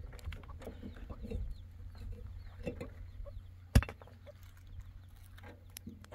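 Wheelbarrow of rocks being set down and unloaded, with small knocks of stone and barrow, and one sharp, loud knock of stone about four seconds in. Chickens cluck in the background.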